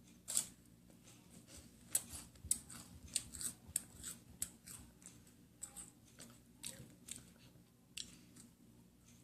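Crisp wafer cookies being bitten and chewed close to the microphone: a run of short, dry, irregular crunches, with the sharpest about half a second in.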